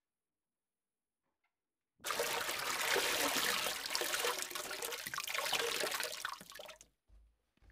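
A rush of water like surf washing in, starting suddenly about two seconds in and dying away about five seconds later.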